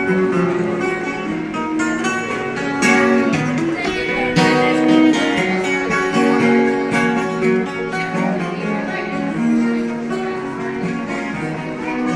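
A busker playing guitar, a steady run of strummed and plucked notes.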